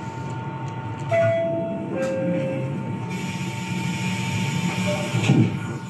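New York City subway car: a two-note descending door chime sounds about a second in over the steady rumble of the train, and a hiss joins from about halfway. A thump comes near the end.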